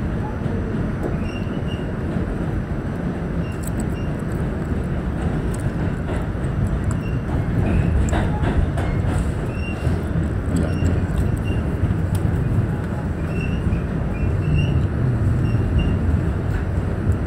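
New York City subway train running, heard from inside the car: a steady low rumble of wheels on the rails, with brief high squeals scattered through it and a few sharp clacks around the middle.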